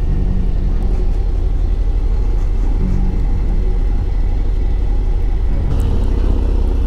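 Harley-Davidson Ultra Limited motorcycle's V-twin engine running steadily while under way on the road, a low, even drone with no change in pitch.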